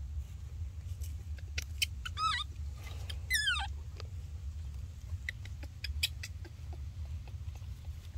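Baby macaque giving two short, high squeals that slide down in pitch, about two and three seconds in, with a few faint clicks over a steady low rumble.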